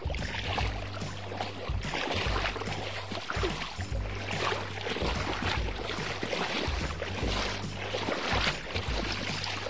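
Shallow stream water swishing and splashing as a two-pole bamboo scoop net is pushed through it along the stream bed, in repeated surges about once a second.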